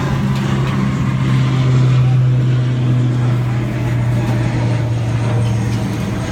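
An engine running steadily with an even low hum over street background noise.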